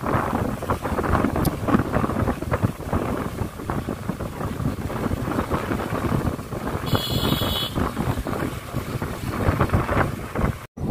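Wind buffeting the microphone on a moving motorcycle, with the bike's engine and road noise underneath. The sound cuts out briefly near the end.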